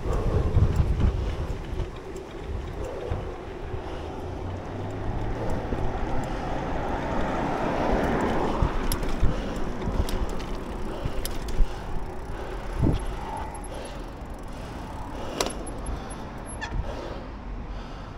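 Wind buffeting the microphone while riding a mountain bike on tarmac, a steady rush with a broad swell around the middle. A few sharp clicks and knocks from the bike come in the second half.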